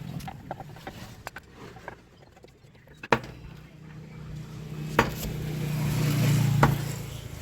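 TVS Sport motorcycle's single-cylinder engine running with a steady low hum that builds from about three seconds in, with a few sharp metallic clicks. The clutch housing has been shimmed with a washer to stop the free play that caused its noise.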